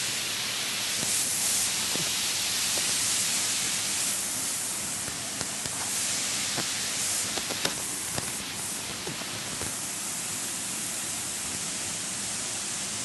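Waterfall: a steady hiss of falling water, with a few faint clicks along the way.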